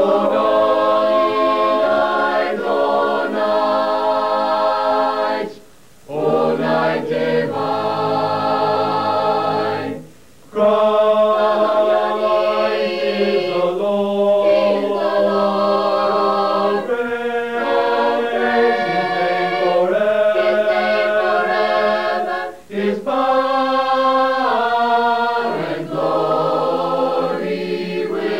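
Mixed-voice a cappella choir singing sustained chords, with short breaks between phrases about six and ten seconds in.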